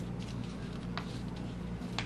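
A sheet of paper being handled and creased while a paper airplane is folded: a few faint, short crinkles over a steady low hum.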